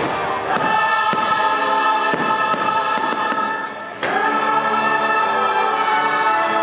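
Fireworks show soundtrack with a choir singing over loudspeakers, and a series of sharp firework bangs and crackles through the first few seconds. The music dips briefly and swells back in about four seconds in.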